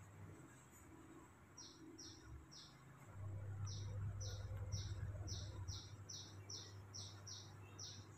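A small bird chirping over and over, short high chirps about three a second, starting about a second and a half in. Under it runs a low steady hum that swells for a couple of seconds in the middle.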